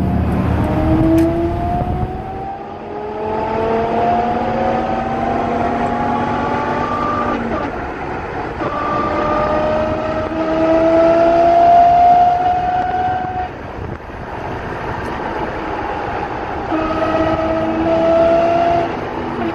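Differential of a 2000 Dodge Ram 1500 whining as the truck drives, heard from inside the cab over engine and road noise. The whine rises in pitch as the truck gathers speed, three times, with breaks between. It comes from worn ring and pinion gears.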